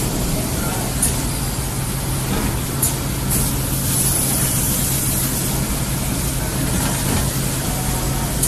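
Production-line machinery running steadily, a constant low hum under an even machine noise, with a few short hisses.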